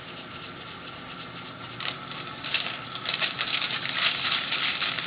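An inked copper intaglio plate being wiped by hand, the wiping material scrubbing rapidly back and forth across the plate. It is a dense scratchy rubbing that gets much louder about two seconds in.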